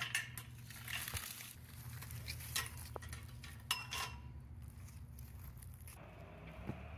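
A chain-link gate's metal fork latch worked by hand, giving a few short metallic clicks and clinks in the first few seconds against the gate post.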